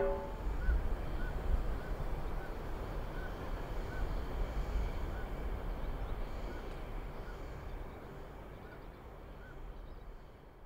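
Beach ambience: a steady wash of surf with a series of faint, short, repeated bird calls, fading out near the end.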